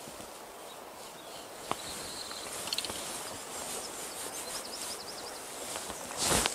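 Steady rush of river water flowing past the bank, with a few small clicks and faint chirps, and a short, loud burst of noise near the end.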